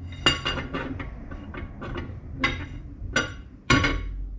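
Cam bearing installer bar (mandrel) being slid through the cam bores of an LS engine block: irregular metallic clinks and clanks, each with a short ring, the sharpest one near the end.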